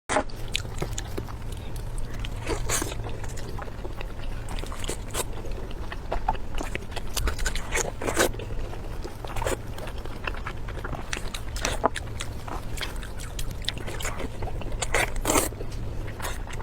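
A person biting and chewing crunchy food, with frequent irregular crunches and crackles over a steady low hum.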